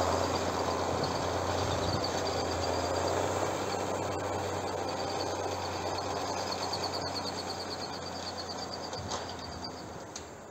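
Zetor ZTS 16245 tractor's diesel engine driving a Huki 265 rotary snowblower, a steady running noise that fades as it moves away.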